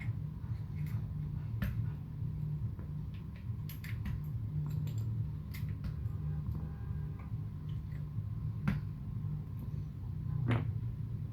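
Typing on a TX1800 mechanical keyboard with modded Cherry MX Silent Black linear switches and SA profile keycaps: soft, muted keystrokes at an irregular, unhurried pace, over a steady low hum.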